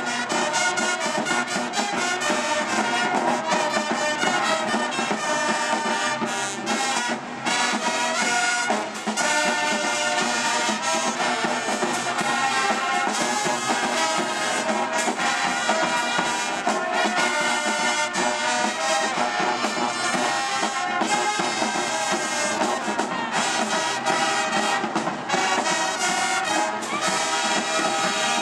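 A brass band playing continuously, with trumpets and trombones carrying the music.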